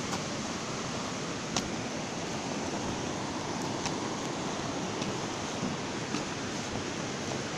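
Steady rushing outdoor noise, with a few faint light clicks.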